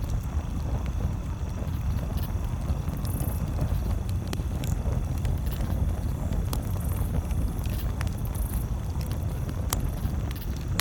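Campfire burning with sharp crackles and pops every second or two over a steady low rumble.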